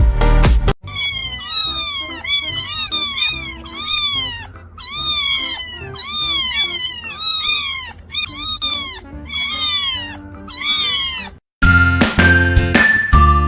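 A litter of kittens mewing insistently while being bottle-fed, typical of hungry kittens crying for milk. The high calls come two or three a second, each rising and falling in pitch, and several overlap. Dance music plays for under a second at the start, and a tinkly tune comes in near the end.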